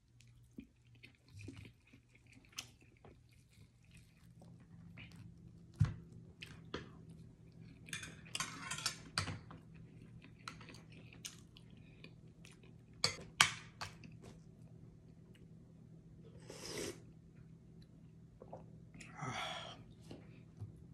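Eating sounds: close chewing, with scattered sharp clicks of a spoon and fork against a ceramic bowl and plate.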